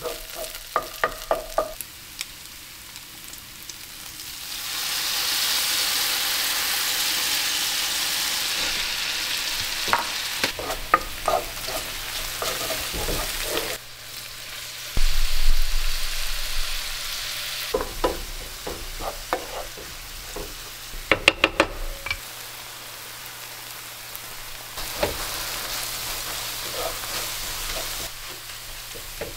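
Bacon, green onion and kimchi frying in oil in a nonstick pan, sizzling, while a wooden spatula stirs and knocks against the pan. The sizzle gets much louder about five seconds in and stays loud for several seconds, with a short louder burst soon after; a quick run of spatula knocks comes about two-thirds of the way through.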